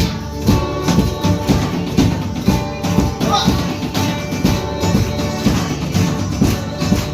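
Worship music with a steady beat.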